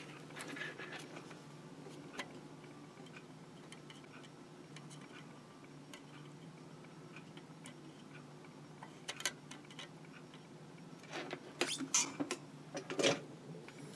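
Faint light clicks and taps from hand soldering work at a clamp-held circuit board: the soldering iron and wire being handled. They come a few at a time about nine seconds in and more often near the end, over a low steady hum.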